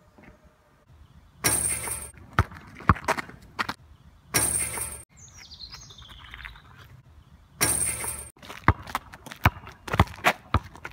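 Basketball bouncing on asphalt: a few single bounces, then dribbled at about three bounces a second near the end. A bird chirps briefly in the middle, and three short bursts of rushing noise break in.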